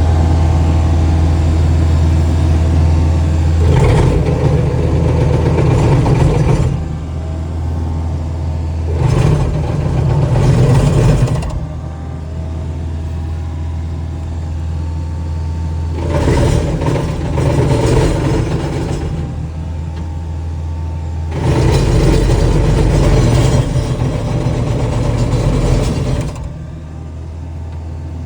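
Skid steer engine running steadily, driving a hydraulic brush cutter that cuts into an 8-inch tree. Four times the sound swells into a louder, harsher stretch lasting a few seconds each as the cutter bites into the wood and the engine works under load.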